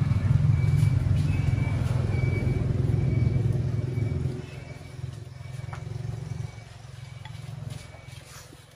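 Low engine rumble of a motor vehicle, loud for the first four seconds or so, then dropping and fading away.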